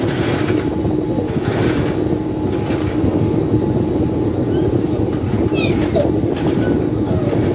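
Industrial sewing machine running with a steady motor hum while stitching a gusset around a triangular bag panel.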